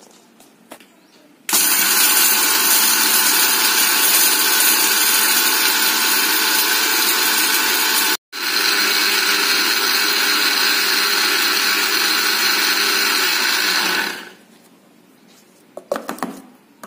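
Electric mixer-grinder running at full speed, grinding dry-roasted whole spices into biryani masala powder. It starts about a second and a half in, drops out for an instant midway, and winds down near the end, followed by a few light clicks of the jar lid.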